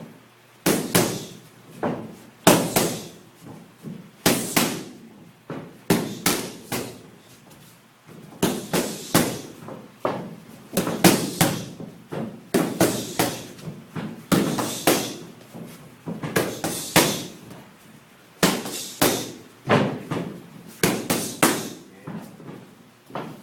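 Boxing punches smacking into focus mitts in quick combinations of two to four hits, with short pauses between combinations.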